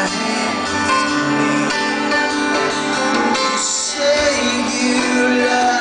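Live music: a male singer singing a slow song with keyboard accompaniment, recorded from the audience.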